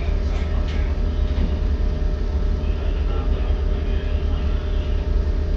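Steady low mechanical rumble with a constant hum, and faint ballpoint pen strokes scratching on paper.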